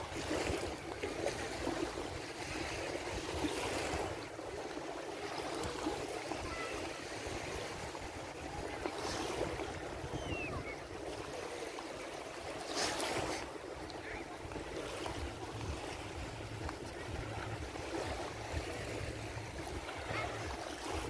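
Small Adriatic Sea waves washing onto a sandy shore: a steady wash that swells every few seconds as a wave breaks and runs up the sand.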